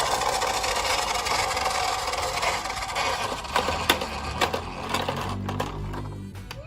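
Toy ambulance minicar running, a steady whirring rattle with a few sharp clicks about three to four seconds in; the whir eases off near the end as a low rumble takes over.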